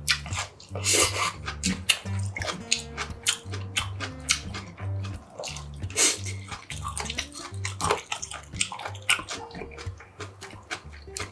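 Close-miked wet slurping and chewing of mulhoe, a cold spicy raw-seafood soup, sipped from a small bowl. The loudest slurps come about a second in and again about six seconds in. Background music with a steady bass beat runs underneath.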